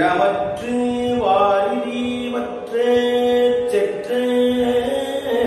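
A man singing a Tamil devotional verse solo in the Oduvar style, drawing out long held notes that glide from pitch to pitch.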